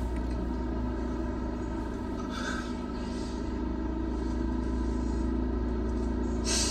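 A steady low electrical hum, with two short breathy sniffs from a man crying, about two and a half seconds in and near the end.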